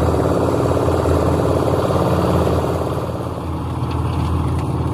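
Concrete mixer's engine running steadily, dropping slightly in level about two and a half seconds in.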